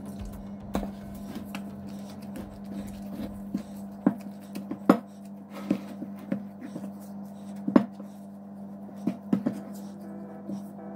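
Spatula stirring bun dough in a glass mixing bowl: irregular sharp taps and clicks of the spatula against the glass, a few seconds apart, over a steady low hum.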